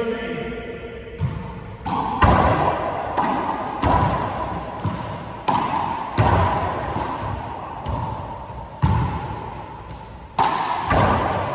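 A four-wall handball rally: the rubber handball struck by hand and rebounding off the front wall and hardwood floor, a string of sharp smacks about one a second, each ringing in the court's echo.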